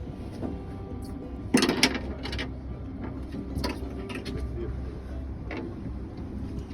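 A boat's engine runs with a steady low hum while a few sharp knocks and clatters of gear on the boat sound, the loudest about a second and a half in.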